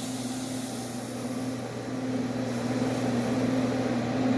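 Refrigerant hissing out of a manifold gauge set's cracked yellow charging hose as the gauges are purged; the hiss thins out after about two seconds as the pressure drops. A steady low hum from the running air-conditioning unit sits underneath.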